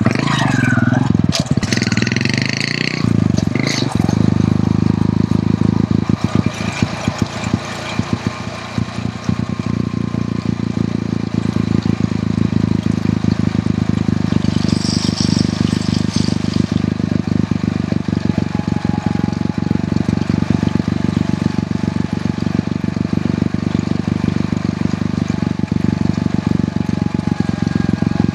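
Hero Honda CD100's small single-cylinder four-stroke engine running steadily under way, with a brief hiss about halfway through.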